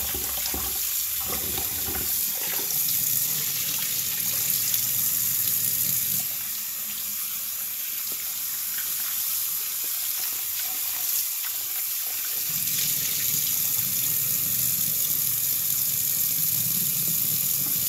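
Kitchen tap running steadily into a stainless steel bowl and steel sink as squid pieces are rinsed by hand. The water's sound changes about six seconds in and again about twelve seconds in. Near the end the bowl is tipped and its water pours into the sink.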